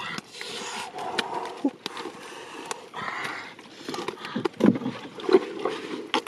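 Bare hands digging and scraping in the mud of a riverbank catfish hole, crunching clods with scattered sharp clicks, as catfish are pulled out and put into a wicker basket.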